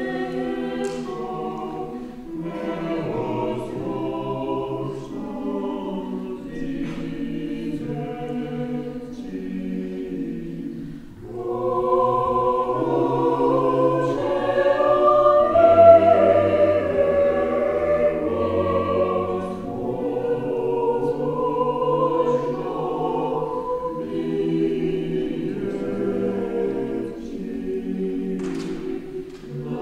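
Mixed church choir singing a cappella in several parts, a slow Serbian Orthodox requiem chant. The singing dips briefly about eleven seconds in, then comes back fuller and louder, at its loudest a few seconds later before easing back.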